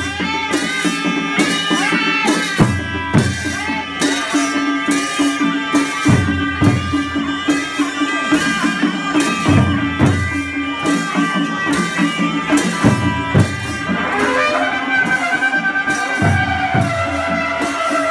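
Nepali panche baja band playing: a reedy sahanai melody over a steady beat of the two-headed dholaki drum and small cymbals. About three-quarters through the melody slides up into a long held note.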